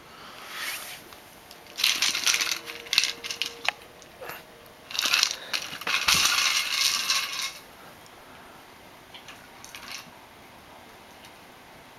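Dry treats rattling and scraping inside a Busy Buddy Tug-a-Jug, a hard plastic treat-dispensing bottle, as a dog knocks and pushes it about. It comes in several rattly bursts, choppy about two seconds in and loudest and longest around six seconds in, with a faint one near the end.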